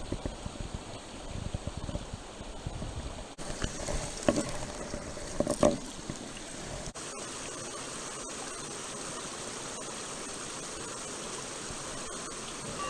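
Small mountain stream running with a steady, even rush of water. Through the first half there are some low bumps and a few short knocks over it; the water alone continues to the end.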